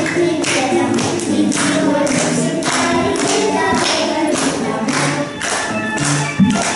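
Two girls singing a song together over a backing track with a steady beat, about two beats a second. A single sharp thump sounds near the end.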